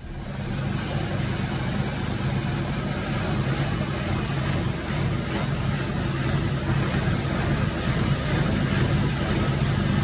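Homemade chaff cutter running steadily as grass is fed into it to be chopped, a continuous machine hum with a noisy whir on top.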